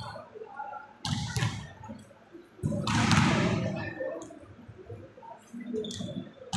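Volleyballs being spiked and smacking off the court, two loud hits about a second and a half apart, then lighter hits near the end, each ringing out in the hall's echo.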